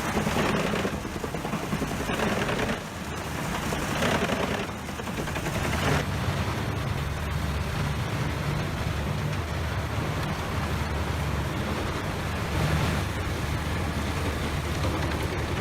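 Doppstadt DH 811 wood chipper at work: four loud grinding surges about one and a half seconds apart as wood is fed in, then the machine's engine running on with a steady low drone.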